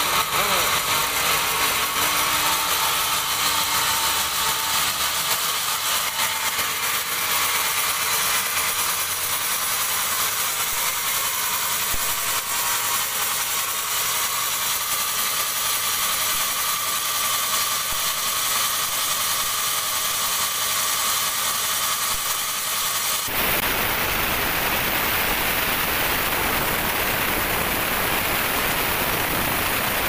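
A large band sawmill running with a steady machine whine while the log carriage feeds a dry teak log toward the blade. About 23 seconds in, the blade bites into the log and a loud, dense rushing sawing noise takes over.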